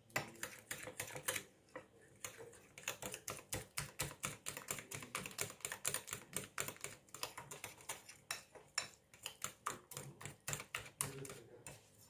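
A utensil beating egg-and-flour batter in a glass bowl, clicking against the glass in a quick, even rhythm of several strokes a second, with a short pause about two seconds in.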